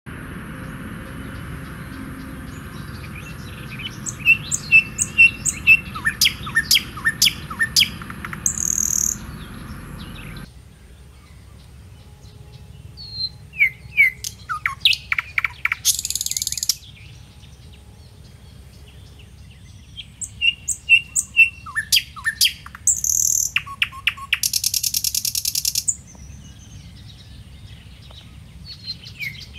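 Birdsong: quick high chirps come in three runs, each ending in a harsh buzzy trill, over a low steady background noise that stops abruptly about ten seconds in.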